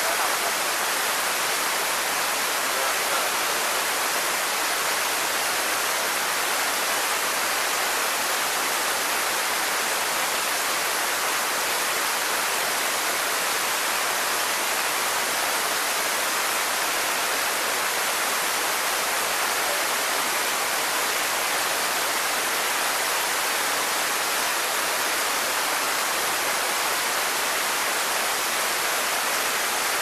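Large waterfall, water pouring over rock ledges into a pool: a steady, even rush of falling water with no breaks.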